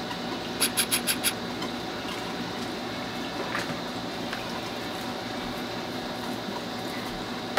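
Steady room tone with a faint hum. About a second in, a quick run of five sharp clicks breaks it, and later there are a couple of fainter ticks.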